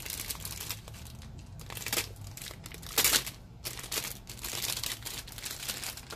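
Thin clear plastic bag around a model-kit runner crinkling and rustling as it is handled, in irregular bursts, the loudest about three seconds in.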